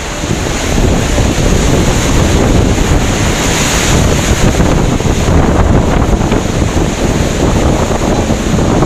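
Typhoon-force wind rushing and buffeting the microphone from inside a vehicle, loud and gusty, coming up sharply right at the start.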